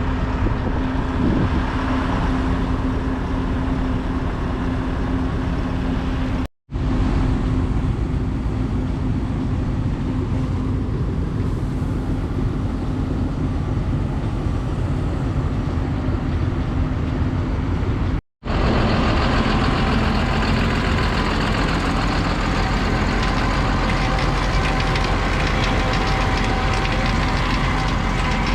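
Hispec feed mixer running under tractor power, a steady mechanical drone with a constant low hum. It breaks off for an instant twice.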